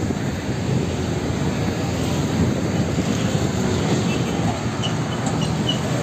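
Road traffic with a heavy truck driving by: a steady noise of engine and tyres.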